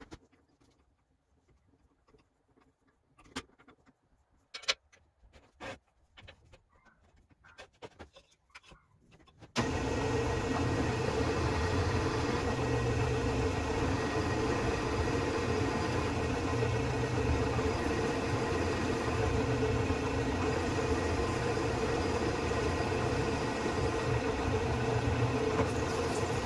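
A few light clicks and knocks of metal tools being handled. Then, about ten seconds in, a drill press starts running with a steady motor hum while its larger twist bit is stepped up to drill out a hole in a steel plate.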